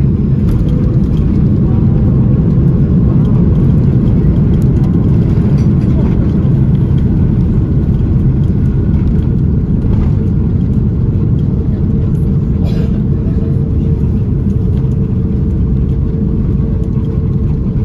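Steady low rumble inside the cabin of an Airbus A330-900neo rolling along the ground after landing, with a faint steady hum under the rumble.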